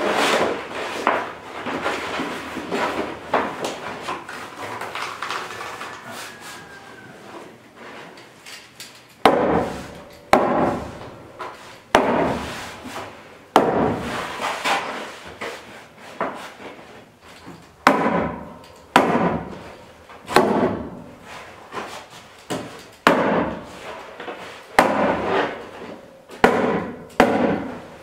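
Tar paper rustling and crinkling as it is held against a board wall. About a third of the way in, a series of about a dozen sharp strikes begins, irregularly spaced about a second or so apart, as the paper is fastened to the wood.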